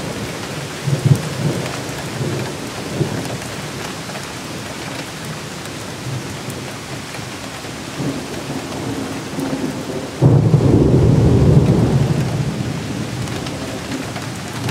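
Steady rain falling in a thunderstorm. About ten seconds in a loud peal of thunder breaks suddenly and rumbles low for a few seconds before slowly fading.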